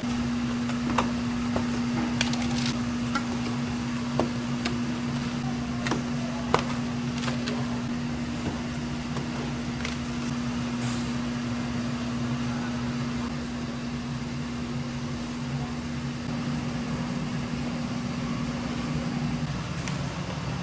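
A steady machine hum that stops near the end, with scattered sharp knocks and clicks, most of them in the first half.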